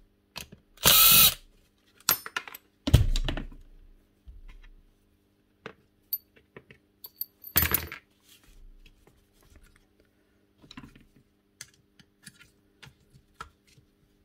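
A power drill-driver runs in three short bursts, about a second in, about three seconds in and near eight seconds, backing out screws to remove the rotary hammer's brush holder. Small clicks and knocks of metal parts and tools being handled fall between the bursts.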